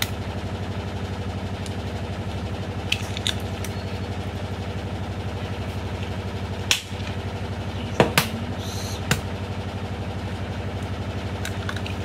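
Eggshells being cracked by hand: a few sharp cracks, around three seconds in and then several between about seven and nine seconds, over a steady low mechanical hum.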